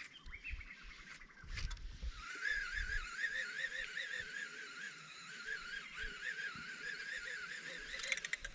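Baitcasting reel being wound in on a slow lure retrieve, its gears giving a whirring whine that wavers up and down about three times a second with the turns of the handle, starting about two seconds in. A few dull knocks sound in the first three seconds.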